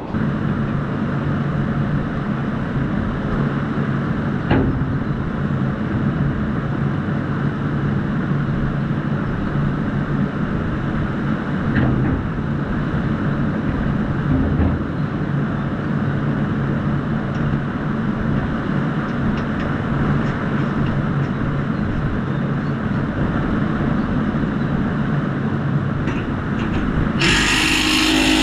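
An engine, likely that of the tractor or machine holding the cutter up, running steadily at a constant speed. About a second before the end, a power tool starts with a sudden higher whine.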